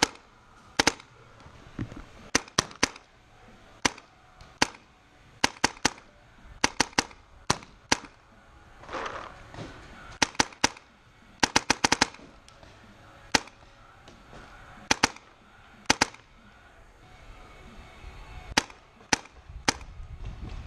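Paintball markers firing: sharp pops at irregular intervals, some single and some in quick strings of three to five shots.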